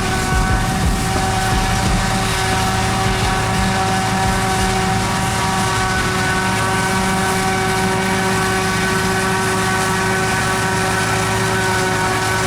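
Heavy farm machinery used for forage chopping, running steadily under load: a deep engine rumble with a steady high-pitched whine over it.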